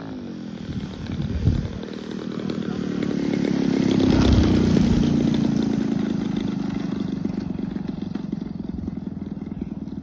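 Radio-controlled aerobatic model plane's engine running as the plane comes in low over the runway, growing louder to its peak about four seconds in and then slowly fading.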